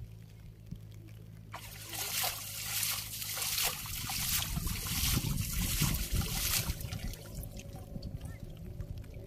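Water splashing, sloshing and dripping as a cast net is hauled in and shaken in shallow water. It starts about a second and a half in and dies away near the end.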